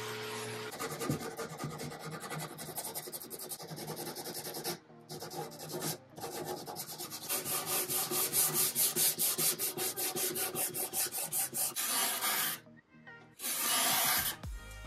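A random-orbit sander's hum cuts off in the first second. Then a sanding sponge rubs quickly back and forth along a turned wooden leg, with short pauses. Near the end come two longer scraping strokes, a card scraper working the cabinet's old veneer.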